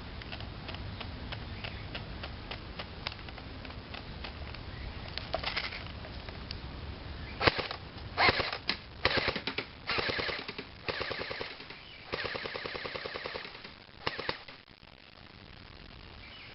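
Airsoft electric gun (AK47-style AEG) firing on full auto: a few short bursts, then several longer bursts with a fast, even rattle. Before the firing there are light regular clicks of the high-capacity magazine's wind-up wheel being turned.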